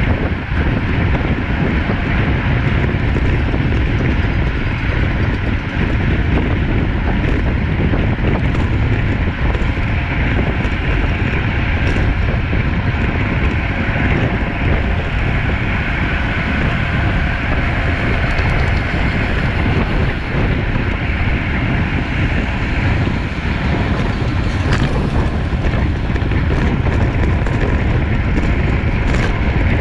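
Wind buffeting the microphone of a camera riding on a racing bicycle at speed: a loud, steady, deep rush of air noise.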